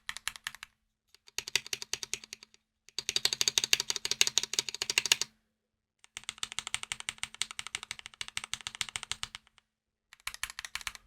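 Rapid typing on a mechanical keyboard with Gateron Silver linear switches, in about five bursts of fast keystrokes with short pauses between them. These light-actuation switches are the quiet kind, much quieter than clicky blue switches.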